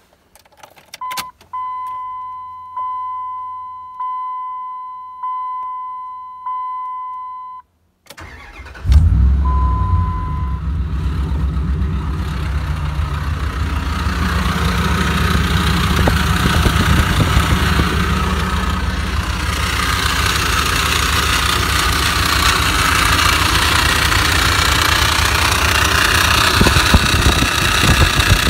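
2003 Dodge Ram 1500's 5.7 L Hemi V8 being started. A few clicks come first, then a warning chime dings about every second and a quarter, six times. About eight and a half seconds in the engine cranks and catches with one short beep, then settles into a steady idle. A hissing noise builds up over the idle.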